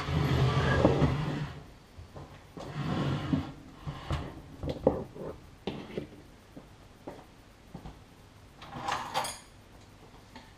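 A microwave oven dragged and turned round on a stone countertop: two scraping slides, the first about a second and a half long and the loudest, then scattered knocks and clicks as it is set in place.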